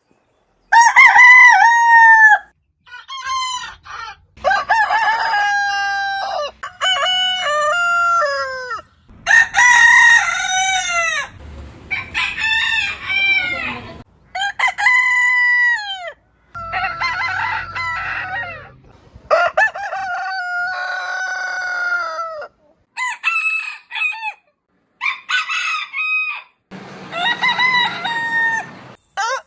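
Roosters crowing, one crow after another, about a dozen in all, each a drawn-out pitched call of one to three seconds. The crows start and stop abruptly with short silent gaps and a changing background between them, as separate recordings cut together.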